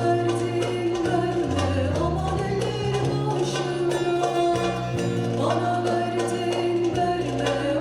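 Turkish folk song (türkü) performed live by a folk-music ensemble with singing, held notes and a winding melody over a steady accompaniment.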